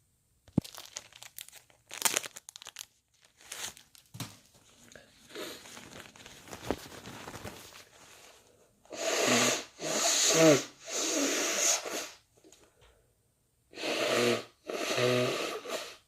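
Tissue rustling and crinkling, then a person blowing a congested nose hard into it, in two bouts of two or three forceful blows each, about two seconds apart; the stuffiness is from a head cold.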